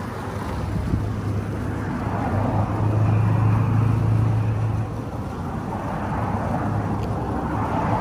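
Road traffic: a motor vehicle passing, its low engine hum and tyre noise swelling to a peak about three to four seconds in and then easing off over a steady background rush.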